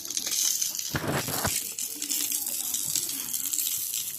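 Water pouring and splashing, with a stronger gush about a second in.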